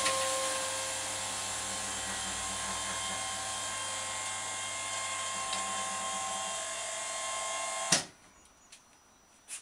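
Motor of a custom-made motorcycle table hoist running steadily with a whine while it raises the platform, then stopping with a clunk about eight seconds in. A single click follows near the end.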